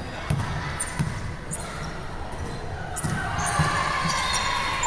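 A basketball being dribbled on an indoor court floor: a few separate dull bounces. A steadier, higher sound joins about three seconds in.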